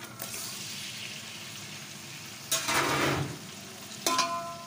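Chopped tomatoes hitting hot oil and fried onions in a metal pot and sizzling, with a louder surge of sizzling about halfway through as they are stirred. Near the end a metal spatula clacks against the pot with a brief ring.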